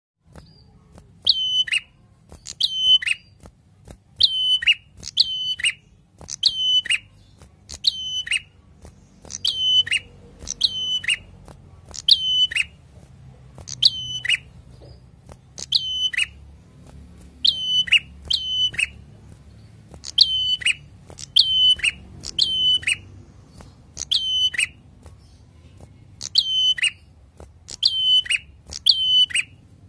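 Caged tailorbird singing: short, loud, high notes that each drop sharply in pitch, often in pairs, repeated about once a second.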